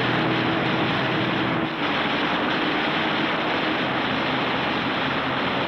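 Propeller aircraft in flight: a steady engine drone over a rushing, wind-like noise, with no change in pitch.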